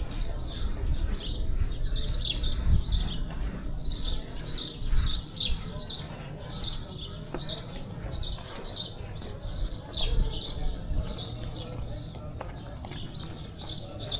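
Small birds chirping in a quick, continuing stream of short calls.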